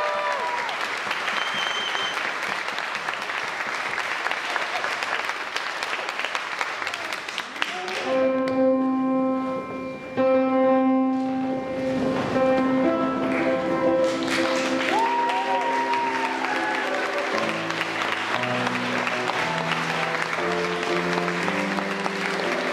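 Audience applauding, with music coming in about a third of the way through: held chords at first, then a moving line of notes, as the applause carries on beneath.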